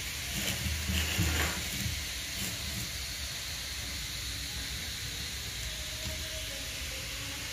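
A few soft knocks and rattles as an electric drill's motor and parts are handled in its plastic housing during the first two seconds, over a steady hiss.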